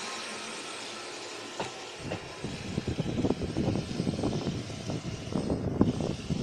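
JR East E531-series electric train running past close by, its wheel and running noise fading over the first two seconds. Then an uneven, gusty rumble of wind buffeting the microphone takes over and becomes the loudest sound.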